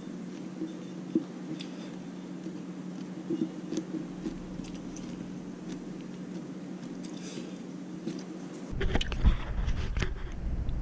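Small clicks and ticks over a steady hum, then about nine seconds in a drill with a diamond hole saw starts with a sudden low rumble and gritty scraping against the quartz countertop.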